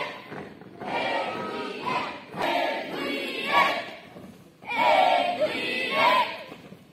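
A group of marching cadets singing in unison, phrase by phrase, each phrase one to two seconds long with short breaks between them.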